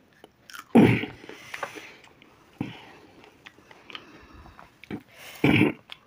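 A man chewing a raw green chilli and letting out short breathy gasps at its heat, three in all, the last and loudest a little before the end.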